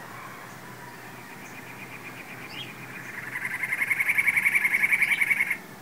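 A songbird singing a fast trill of rapidly repeated notes. It starts about three seconds in, grows louder, and stops abruptly near the end.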